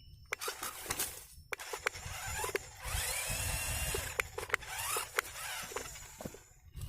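Small electric motor of an RC rock crawler whining, rising in pitch around the middle, with scattered clicks and crunches from the tyres and chassis over rough ground.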